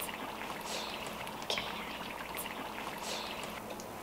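Steady low hiss with a few faint clicks and soft rustles as snack pieces are picked up from a plate.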